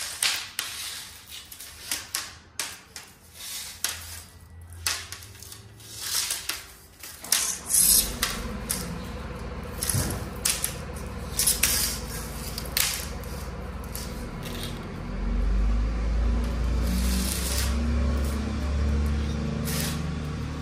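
A window screen frame and its mesh being handled on a concrete floor, with scattered taps, clicks and rustles as the frame is shifted and the spline is pulled from its channel. About eight seconds in, a steady low hum joins and grows louder a little past the middle.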